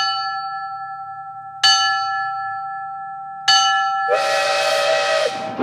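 A small bronze bell struck three times by its clapper, pulled on a rope, each strike about two seconds after the last and left ringing to fade. About four seconds in, a short hissing whistle blast sounds over the ringing.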